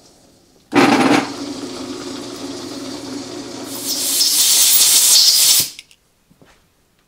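Belt-driven metal lathe starting suddenly and running steadily with a low hum. About halfway through, a loud high hiss joins it, and both cut off abruptly near the end.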